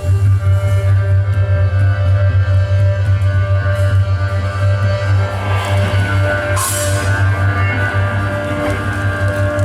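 Live band music: a loud, deep bass pulse throbbing rapidly under several steady held tones, with a brief bright splash about six and a half seconds in.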